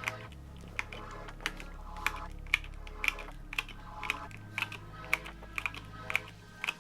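Key presses on a Monsgeek M5 mechanical keyboard with Gateron North Pole tactile switches and reverse pudding keycaps. The keys clack irregularly, about two strokes a second.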